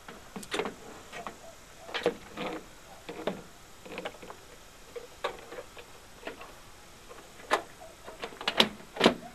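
Jeep Wrangler JK half door's hard plastic interior panel clicking and knocking against the sheet-metal door as it is hung from the top and worked into its top holder pockets. Irregular taps, with the loudest few near the end.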